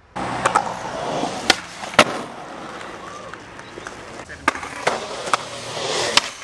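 Skateboard wheels rolling on pavement, with a series of sharp clacks of the board striking the ground and ledge.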